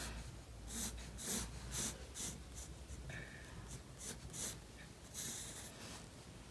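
Pencil scratching across sketchbook paper in a series of short, high-pitched strokes, drawing guide lines.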